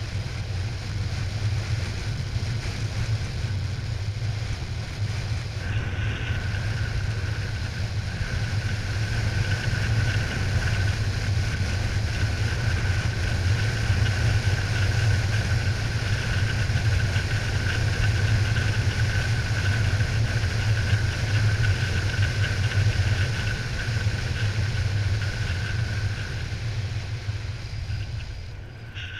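Airflow rushing and buffeting over a camera microphone on a paraglider in flight, a steady low rumble. A faint, steady high tone joins it about six seconds in.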